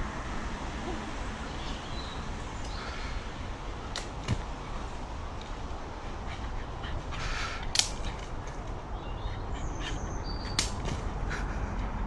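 A dog tugging and swinging on a leafy tree branch: leaves rustle in short rushes and twigs snap sharply a few times, over a steady low rumble.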